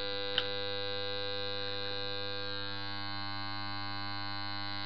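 Rewound 50 Hz mains transformer humming steadily on no load, a buzzy hum with many overtones. A brief click sounds about half a second in.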